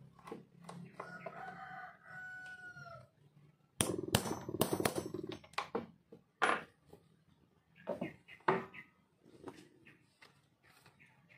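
A hand hammer strikes a steel punch and the cowhide on a wooden workbench: a quick run of sharp knocks about four seconds in, then a few single blows. Before the hammering, a rooster crows once in the background, a call about two seconds long that ends on a falling note.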